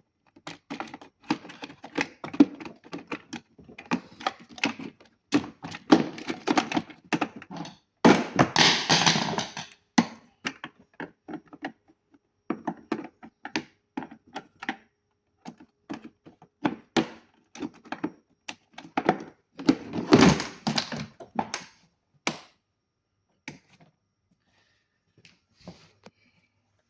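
Hands handling a small battery-powered device: rapid plastic clicks, taps and knocks. Two longer scraping, rustling stretches come about a third of the way in and again about three-quarters of the way in. The clicks thin out to a few taps near the end.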